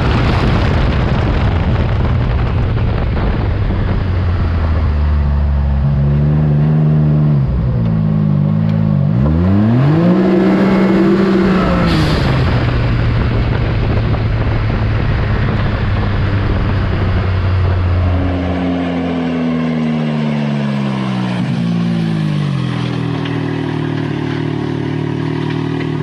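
Can-Am Maverick X3's turbocharged Rotax three-cylinder engine breathing through an Evolution Powersports full exhaust, driven at low speed. The engine note rises and falls a few times, dips again later, then settles to a steady idle near the end.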